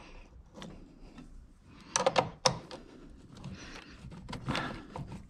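Scattered clicks and knocks of hand tools and metal parts at a truck battery as its cable is being disconnected, the sharpest pair about two seconds in.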